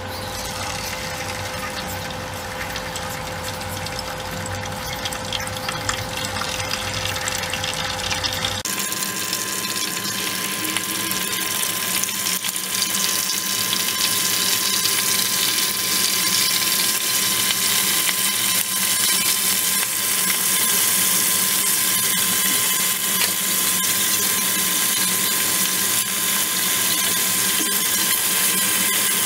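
Raw chicken wings deep-frying in hot oil in a wok: a steady sizzling and bubbling that grows louder as more wings are dropped in.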